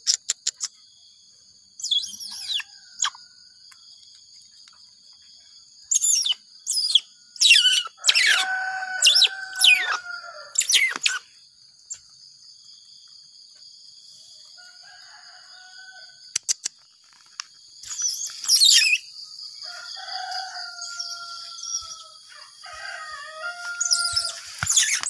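Baby Asian small-clawed otter squeaking in several bursts of shrill, sharply falling chirps.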